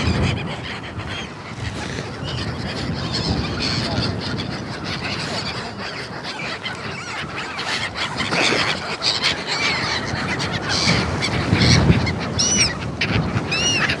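A flock of gulls calling, many overlapping harsh calls, with three clear rising-and-falling calls in quick succession near the end. Wind buffets the microphone underneath.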